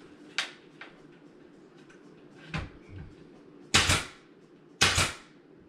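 Sharp knocks on the wooden box spring frame as an extra brace is fastened to it: two lighter ones, then two loud ones about a second apart in the second half.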